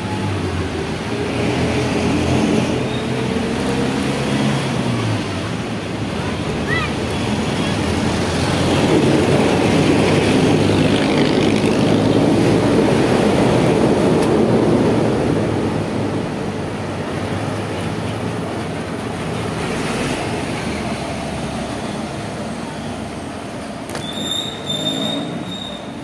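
City street traffic noise heard from a moving rider. A vehicle engine revs up over the first few seconds, a louder rushing noise swells through the middle, and a few short high-pitched beeps sound near the end.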